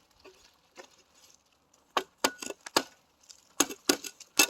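A run of about eight sharp, irregular cracks and snaps, starting some two seconds in, several in quick pairs, with the woody character of dry debris cracking.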